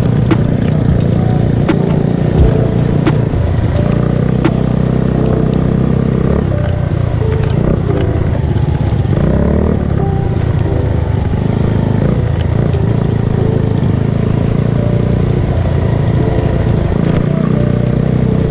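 A motor scooter's engine runs steadily as it rides, under background music with a slow beat.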